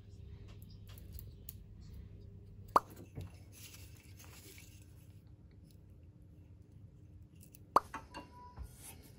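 Two short plops about five seconds apart, each a sharp click with a quick falling tone, over a faint low steady hum.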